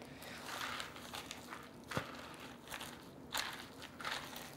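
Dressed romaine lettuce and croutons being stirred and tossed in a bowl with a spatula: irregular rustling and crunching, with a few light knocks.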